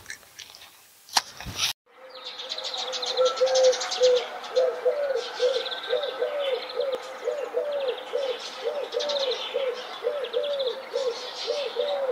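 Birds calling in dense woodland: a low note repeated two or three times a second over high chirps and fast trills, setting in about two seconds in.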